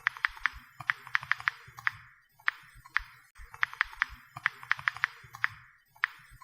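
Quick, irregular string of small sharp clicks, roughly two to four a second with short pauses: bubbles of a silicone Pop It fidget toy being pressed.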